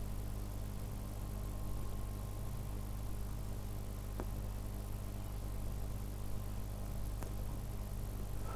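Quiet room tone: a steady low electrical hum, with a couple of faint clicks.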